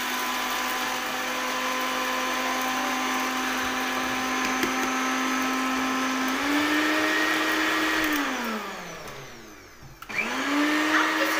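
Electric mixer-grinder motor running with its small jar, grinding granulated sugar into powder. It runs steadily, steps up slightly in pitch about six seconds in, is switched off and winds down from about eight seconds in, then starts again and climbs back to speed near the end.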